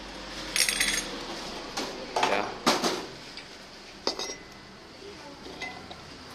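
Metal clinks and clattering of a brass semawar burner assembly from a high-pressure LPG stove being handled on a tiled floor: a run of sharp knocks in the first three seconds and one more about four seconds in.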